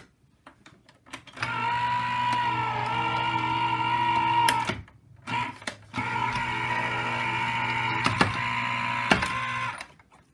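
Sizzix Vagabond 2 electric die-cutting machine running as it rolls a cutting-plate sandwich through to die-cut cardstock: a steady motor hum for about three seconds, a short pause, then a second run of about four seconds. A few sharp clicks come near the end of each run.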